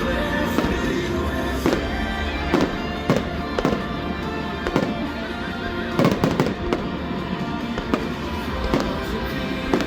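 Aerial fireworks bursting in quick succession, sharp bangs about once a second with a tight cluster around six seconds in, over music.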